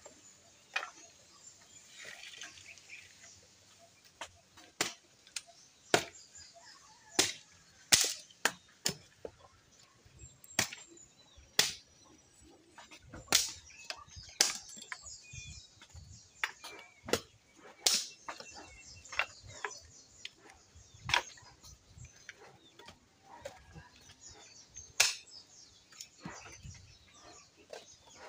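Dry firewood sticks knocking and clacking against each other as they are handled and stacked by hand: a long run of sharp, irregular wooden knocks.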